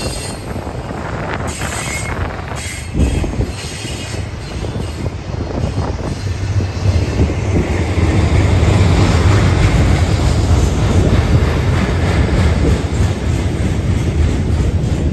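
Train rolling past: steady wheel-on-rail rumble with a few sharp clanks and a faint squeal early on, the rumble growing louder about eight seconds in.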